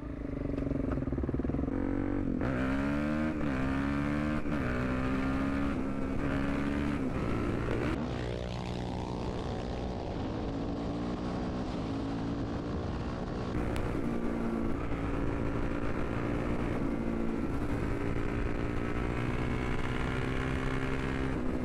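Supermoto motorcycle engine pulling away: it revs up and shifts through several quick gear changes in the first few seconds, then settles into a steady cruise with small rises and falls in revs.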